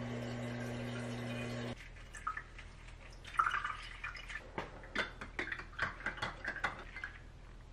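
Refrigerator door water dispenser running with a steady hum as it fills a glass jar, cutting off suddenly about two seconds in. After that, scattered light clicks, drips and taps as a lemon is squeezed into the jar and the water is stirred.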